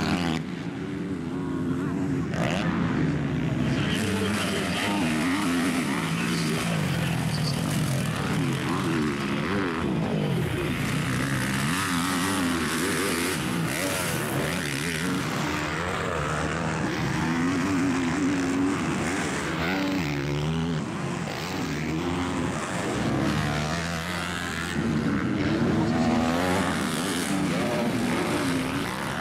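Several motocross bikes racing: their engines rev hard and drop back again and again through corners and over jumps, with more than one bike heard at once.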